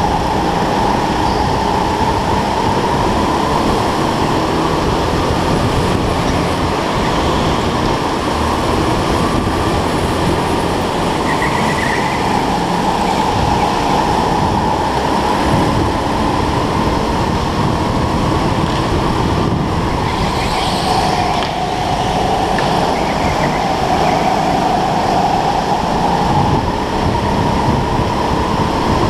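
Racing go-kart running at speed, heard from a camera mounted on the kart: a steady whine over continuous rumble that drifts up and down in pitch as the kart speeds up and slows through the corners.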